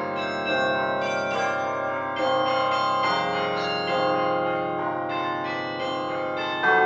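Ringing bell tones, overlapping struck notes that keep sounding. A new note is struck about every second, with a louder strike near the end.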